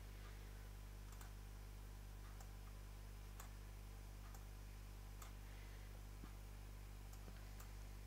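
Faint computer mouse clicks, about seven at irregular intervals, over a steady low electrical hum.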